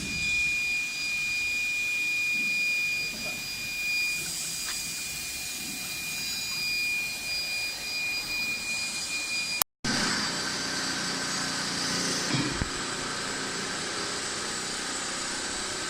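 Automatic saw blade sharpening machine running: a steady machine whine with a high tone. It is cut off abruptly about ten seconds in, then continues as steady machine noise without the high tone.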